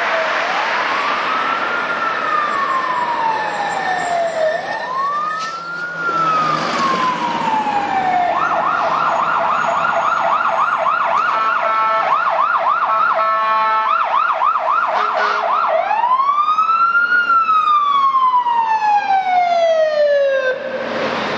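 Fire truck siren responding: two slow rising-and-falling wails, then a fast yelp about eight seconds in, then back to a wail about sixteen seconds in, growing louder as the pumper approaches.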